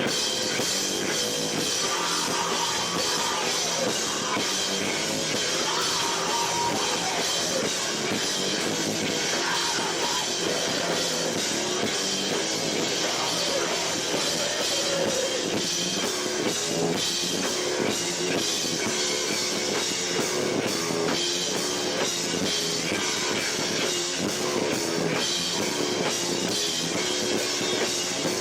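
A live rock band playing loud and without a break, with drum kit and electric guitars. The recording is harsh and distorted because the camera microphone is overloaded by the band and the room's echo.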